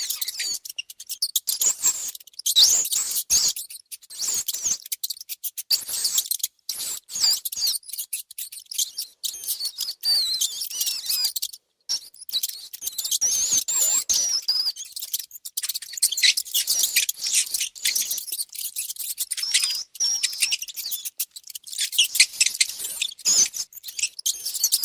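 Mice squeaking: a dense run of short, high-pitched chirping squeaks that glide up and down, mixed with quick scratchy clicks, broken by brief silent gaps.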